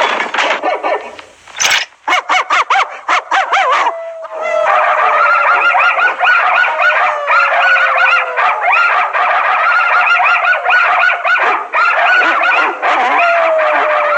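Many dogs barking and howling back and forth as a relayed alarm: a few sharp barks in the first seconds, then from about four and a half seconds a dense, unbroken chorus of overlapping yelps and calls, with one long howl falling slowly in pitch.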